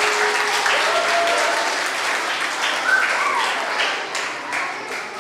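Audience of school pupils applauding, with a few voices calling out over the clapping; the applause dies away near the end.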